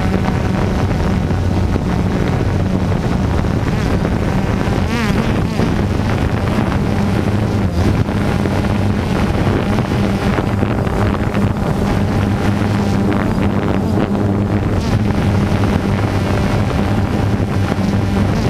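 DJI Phantom 2 quadcopter's motors and propellers humming steadily, heard close up from the camera slung beneath it, with wind rushing over the microphone.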